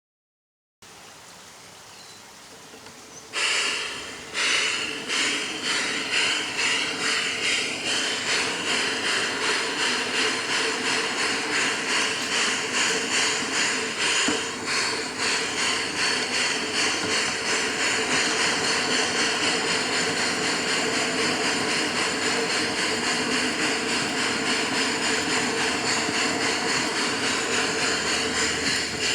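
G-scale model steam locomotive chuffing: after a few seconds of faint hiss, the chuffs begin about three seconds in, slow at first, then quicken into a fast, even beat with a steady hiss.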